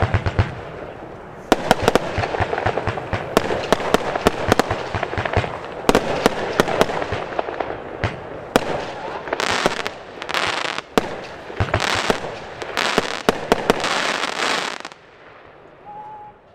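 Evolution Evomeister 20mm firework battery firing: a rapid string of sharp shots and bursts. In the second half it adds a run of hissing bursts, and the shooting stops about a second and a half before the end.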